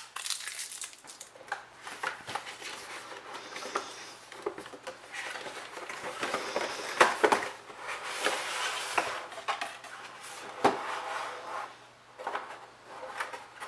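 Hands opening a product box and handling its packaging: irregular rustling and scraping, broken by sharp clicks and knocks, with two louder knocks about seven seconds in and again near eleven seconds.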